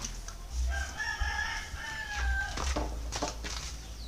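A rooster crowing once, a single drawn-out call of about two seconds, followed by a few short knocks.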